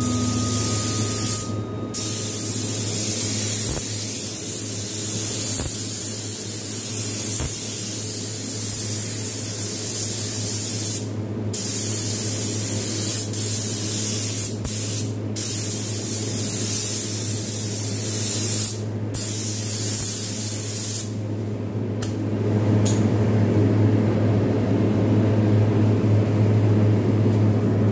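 Paint being sprayed onto truck body panels: long steady hissing passes of spray, broken several times by short pauses when the spray stops.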